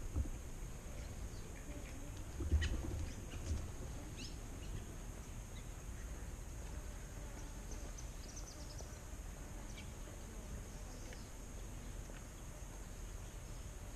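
Scattered faint, short bird chirps, with a quick run of high notes about eight seconds in, over quiet outdoor background; a few low thumps about two and a half seconds in.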